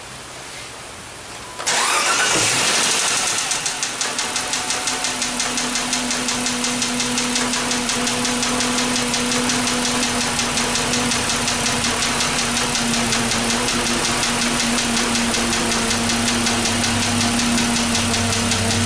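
2006 Dodge Magnum's 2.7-litre V6 cranking and catching about two seconds in, flaring up and then settling into a steady idle. A rapid, even lifter tick runs through the idle, from a bad hydraulic valve adjuster at the back right behind the throttle body.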